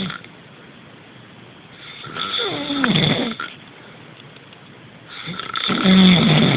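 A person snoring: two full snores about three seconds apart, each one sliding down in pitch, with the tail of a previous snore at the very start.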